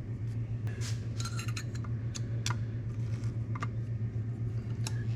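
Small metal clicks and clinks, about a dozen scattered through, as brass main jets are set and threaded into an Edelbrock carburetor body, over a steady low hum.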